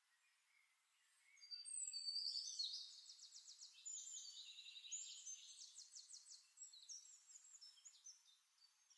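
Faint bird chirping and trilling in the background, high-pitched and in quick runs of notes, starting about a second and a half in and fading out near the end.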